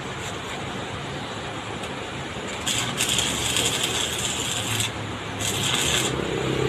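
Stick-welding arc crackling and sizzling as an electrode is run on steel, in two spells: one from about two and a half seconds in, lasting a couple of seconds, and a short one near the end. A steady low hum runs underneath.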